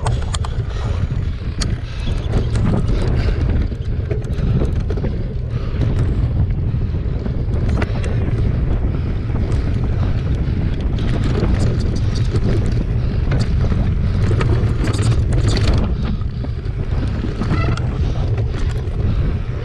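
Wind buffeting the microphone over a steady rumble of mountain bike tyres on a dry dirt trail, with frequent sharp clicks and rattles from the bike jolting over bumps.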